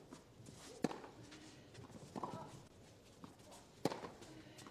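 Tennis ball struck back and forth by rackets in a rally: three sharp hits about a second and a half apart.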